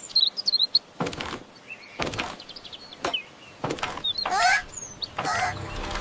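Songbird chirping: a quick high twitter near the start, then sliding whistled calls about four and five seconds in, with a few short whooshes in between.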